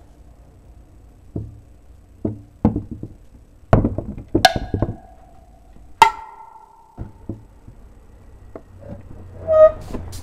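Light knocks and taps of craft pieces, a cardboard platform and a small model house, being set down by hand onto a frame of wooden craft sticks. The knocks are spaced irregularly, and two of them, about halfway through, ring briefly.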